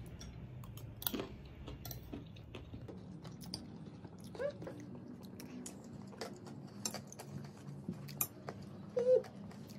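Chatpate, a crunchy spicy puffed-rice snack, being chewed, with scattered crunching clicks and spoons tapping on plates. A short voice sound comes about halfway through and again near the end.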